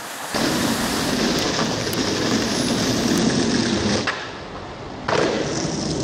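Skateboard wheels rolling on concrete. About four seconds in a sharp click cuts the rolling off for about a second, and it comes back with a sudden landing and the board rolling on.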